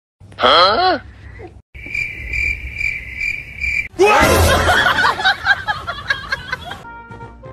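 A short sliding pitched cry. Then about two seconds of steady, pulsing cricket-like chirping that starts and stops abruptly. Then a loud burst of snickering laughter.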